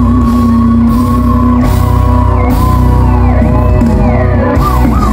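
Live pop band music from an outdoor concert stage, loud through a phone microphone, with a long held note and a wavering, bending melody line.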